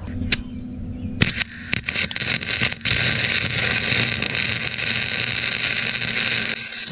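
Electric arc welding on a metal ramp frame: the arc crackles and sizzles. It starts with a few short strikes about a second in, settles into a steady crackle, and stops just before the end.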